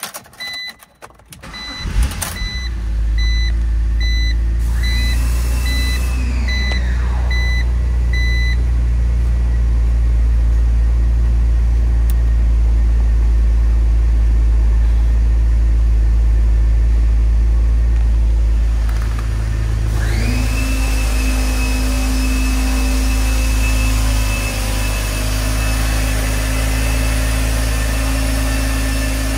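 2004 BMW Z4's inline-six engine started with a brief crank about two seconds in, then idling steadily, while a dashboard warning chime beeps repeatedly for the first eight seconds or so. From about two-thirds of the way through, a steady high whine is heard over the idle.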